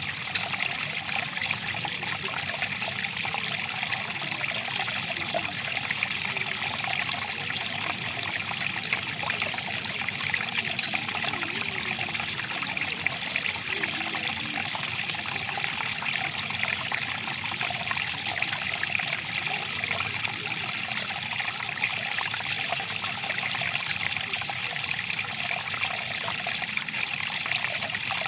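Small stream of water flowing and trickling, a steady, even babble with most of its energy in the high range.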